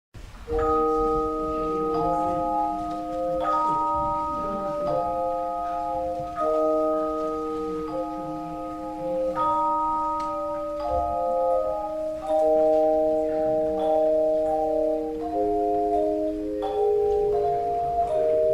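Slow instrumental music: held chords that change every second or two over one long sustained lower note.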